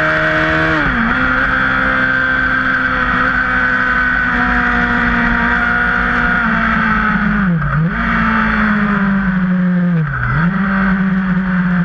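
Yamaha sport bike's engine running hard on track, recorded onboard with wind rushing past: the pitch drops about a second in, holds steady, then twice dips sharply and climbs back as the throttle is rolled off and reopened for corners.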